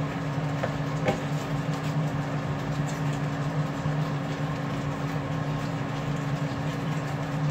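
Shrimp cooking in sauce in a frying pan, sizzling as it is turned with metal tongs and a spatula, with a few light clicks of the utensils against the pan. A steady low mechanical hum runs underneath.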